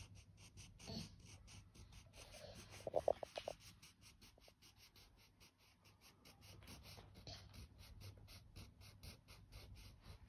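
Faint scratching of a crayon rubbed back and forth across the paper of a colouring book. A brief pitched sound stands out about three seconds in.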